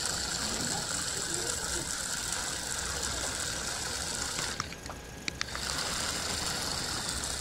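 Small DC motor of a homemade toy tractor running with a steady high whir as it drives the rear wheels through sand. The whir drops out for about a second near five seconds in, with a couple of clicks, then picks up again.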